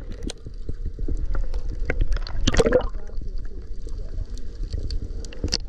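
Water heard through a submerged camera: a steady low rumble with scattered clicks and crackles, and a louder gurgle about two and a half seconds in.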